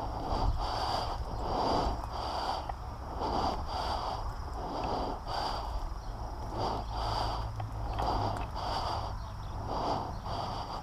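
A person breathing hard and rhythmically close to the microphone, about one breath a second, over a low steady rumble.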